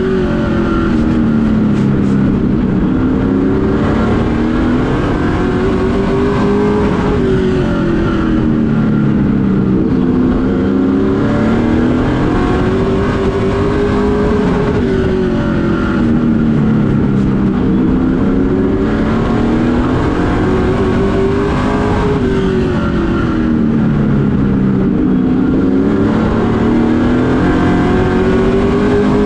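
Race truck's engine heard from inside the cockpit under racing load on a short oval. The engine note climbs as it accelerates down each straight and drops as the driver lifts for the turns, repeating over and over.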